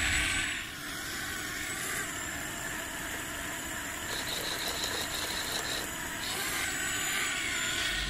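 A steady mechanical running noise with no clear pitch, vehicle-like.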